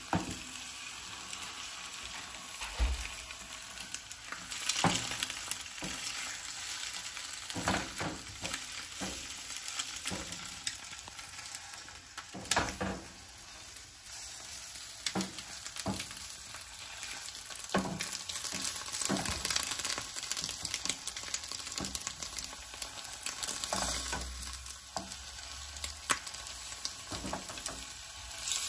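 Eggs sizzling in oil in a small nonstick frying pan, with a wooden spatula scraping and knocking against the pan every few seconds as they are turned and broken up.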